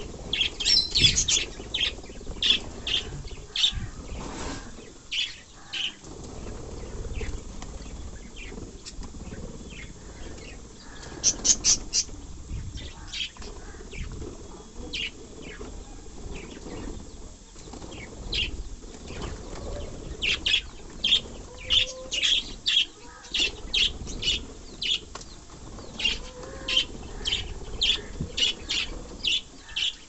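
A flock of budgerigars chirping, many short high calls often coming in quick clusters, mixed with wing flapping as they flutter about.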